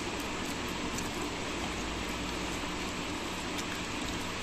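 Steady fan-like hiss, with a few faint soft clicks and squishes as fingers mix rice and curry on a steel thali.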